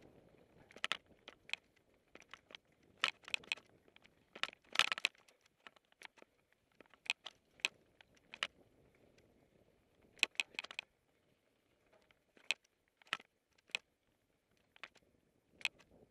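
Mountain bike jolting over a rough dirt singletrack: irregular sharp clicks and rattles, some in quick clusters, over a faint rumble of tyres on dirt. The clicks thin out briefly about two thirds of the way through.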